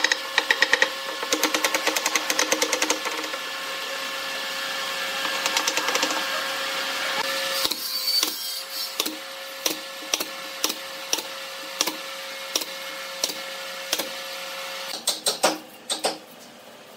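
Pneumatic brad nailer firing a series of about a dozen sharp shots into wood, roughly two a second, over a steady hum. It opens with fast rhythmic rasping strokes on wood.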